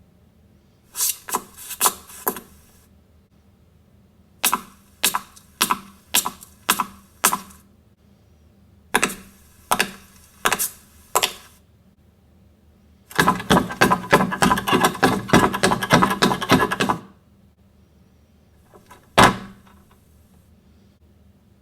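Groups of sharp knocks or taps, a few at a time with pauses between, then a rapid continuous clatter lasting a few seconds, and a single knock near the end.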